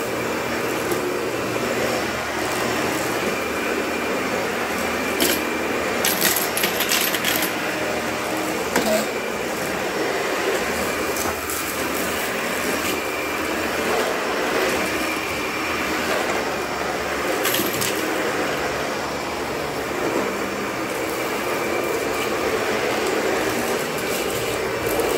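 Dyson vacuum cleaner running steadily as its cleaner head is pushed across a concrete floor and a rug. Short crackling bursts of grit being picked up come several seconds in and again past halfway.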